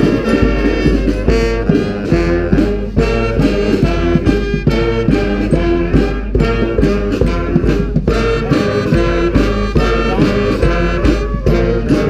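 Street brass band playing together: sousaphones, trombones, saxophones and trumpets over a steady, evenly spaced drum beat.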